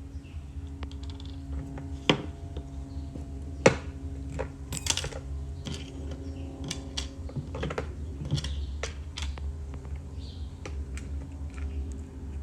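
Irregular sharp clicks and light metallic taps, with two louder knocks about two seconds and three and a half seconds in: small parts and hand tools being handled while a rotary engine's rotors are taken apart. A steady low hum runs underneath.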